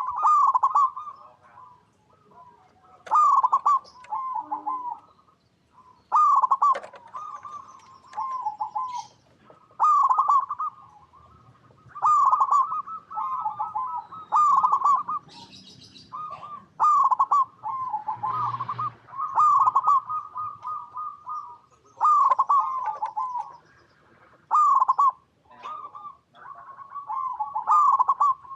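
Zebra dove (perkutut) cooing: short bubbling coo phrases, repeated every few seconds and sometimes running close together.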